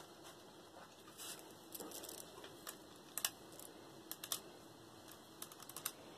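Faint, scattered clicking of acrylic beads as beaded motifs are picked up and laid down on a table.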